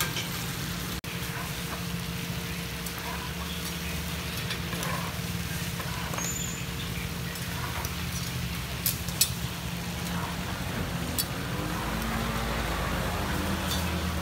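Pan-fried buns (shuijianbao) sizzling in water and oil in a wide iron pan, a steady hiss over a low rumble. Metal spatula and tongs clink against the pan a few times near the end.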